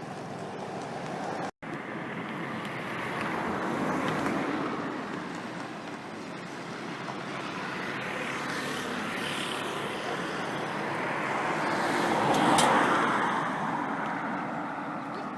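Steady engine and tyre noise of a car driving on a mountain road, swelling twice, most strongly near the end. The sound cuts out for an instant about a second and a half in.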